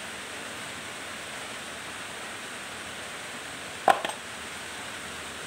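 Steady hiss of rain, with one sharp click and a short ring about four seconds in, then a fainter second click, as pliers work a small piece of thin steel plate.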